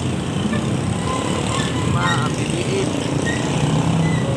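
Steady street traffic, motorcycle and car engines running, with a low engine hum growing stronger in the second half and a brief voice about two seconds in.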